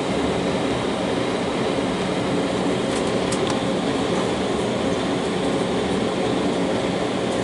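Cabin noise of an Embraer 190 taxiing: its two General Electric CF34 turbofans running at low taxi thrust, with the steady rumble of the wheels rolling over the taxiway. A few faint ticks about three seconds in.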